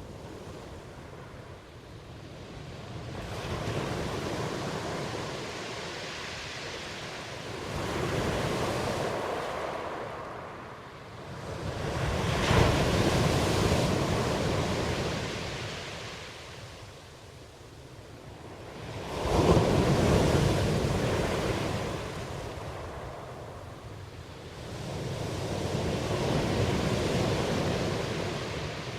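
Ocean waves surging and washing back in slow swells, about five in a row. Two of them break more sharply, one near the middle and one about two-thirds through.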